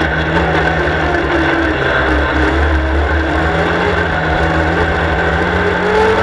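Superstox race car's engine heard on board, running steadily at moderate revs. The pitch holds level and rises slightly near the end.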